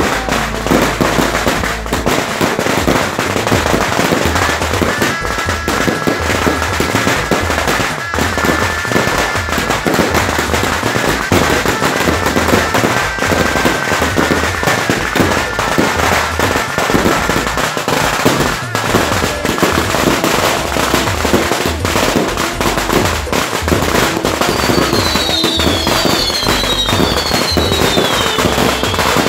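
Fireworks going off close by: a dense, continuous crackling and popping of sparking cake and fountain fireworks, with a few high falling whistles near the end.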